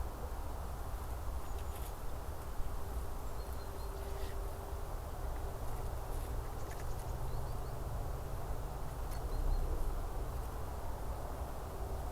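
Forest ambience: a steady low rumble with a few faint, short, high chirps, and an insect buzzing low and steadily for about five seconds from about five seconds in.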